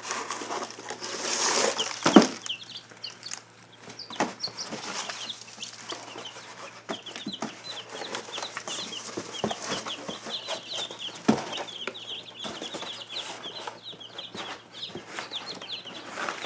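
A flock of young chicks peeping constantly, many short high chirps overlapping. A few sharp knocks and some rustling come through among the peeps, the loudest knock about two seconds in.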